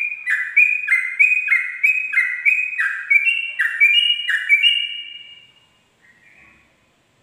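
Yellow-vented bulbul (trucukan) singing its rapid 'ropel' phrase: a fast, even run of repeated two-part notes, about three a second, that fades out after about five seconds, followed by one soft note.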